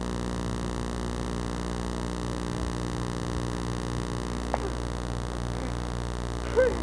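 Steady low hum and hiss with no clear event, broken by a single click about four and a half seconds in and a brief faint call of a voice near the end.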